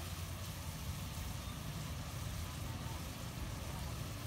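Steady low rumble with a fine hiss over it, from a wok of cockles sizzling in tamarind sauce over a gas burner.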